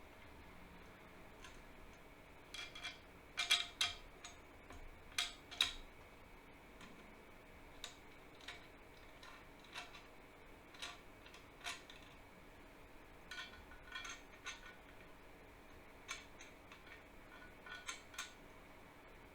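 Scattered light clicks and metallic clinks of small parts and tools being handled on a workbench, loudest in a cluster a few seconds in, then sparser.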